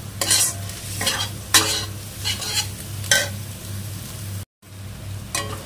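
Steel spatula scraping and stirring chopped onions, ginger and garlic frying in oil and ghee in a kadai, over a steady sizzle. A sharp scrape comes roughly every half second to a second, and the sound drops out for a moment about four and a half seconds in.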